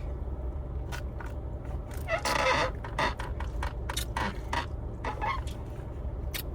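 Boiled crawfish being cracked and peeled by hand: scattered sharp snaps and crunches of shell, with a louder crunch or two about two and a half seconds in, over a steady low hum.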